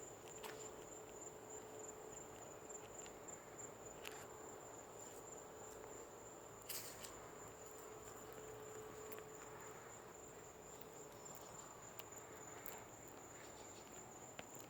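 Night-time insect chorus: a steady high-pitched trill that does not let up, over a faint low hum that fades in and out. The hum is the unexplained 'humming noise' the recorder heard from the sky. A few short sharp chirps or clicks stand out, the loudest about seven seconds in.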